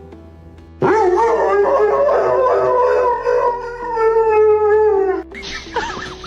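A dog howling: one long held howl that slowly falls in pitch, over background music. Shorter wavering cries follow near the end.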